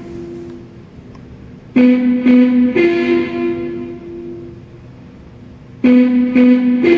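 Electric guitar picking a slow repeating three-note figure: two notes on the same pitch, then a higher note left ringing. The figure comes twice, about four seconds apart, and each time it fades out before the next one starts.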